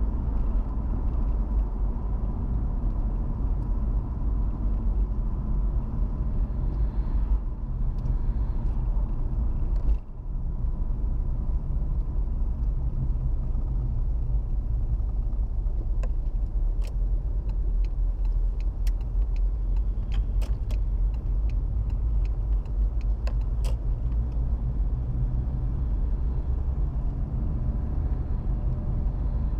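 Car driving, a steady low rumble of road and engine noise heard from inside the cabin. It dips briefly about ten seconds in, and scattered faint clicks come through in the middle stretch.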